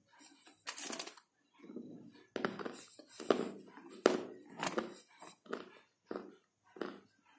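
Close-up biting and chewing of dry baked edible clay (mitti) discs, giving an irregular run of sharp, crisp crunches.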